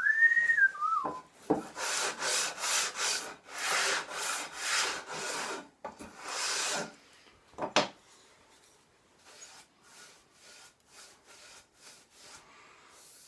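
A wooden part being hand-sanded smooth in a run of rasping back-and-forth strokes, about two a second, which turn lighter and fainter in the second half. A short falling squeak of wood rubbing on wood comes at the start, and a single sharp knock comes near the middle.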